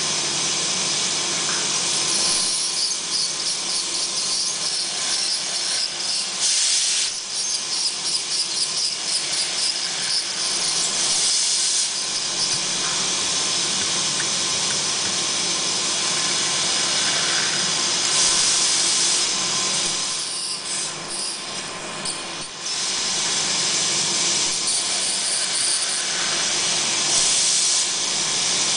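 High-speed dental handpiece with a diamond bur cutting a tooth: a steady, high-pitched hiss from the air-driven drill and its water spray, which drops off briefly about twenty seconds in before picking up again.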